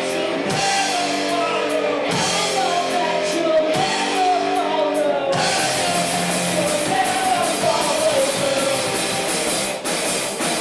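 Live hard rock band playing: distorted electric guitars, bass and a drum kit, with a man singing a held melody over them.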